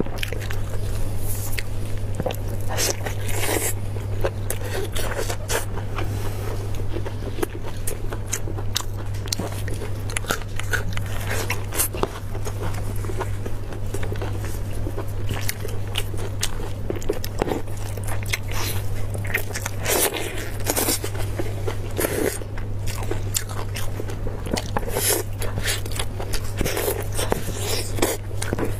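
Close-miked biting and chewing of braised beef ribs: wet mouth sounds and many small clicks and smacks as the meat is bitten off the bone and chewed, over a steady low hum.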